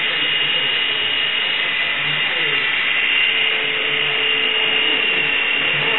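Steady whir of small electric motors with an even, high whine, holding level throughout.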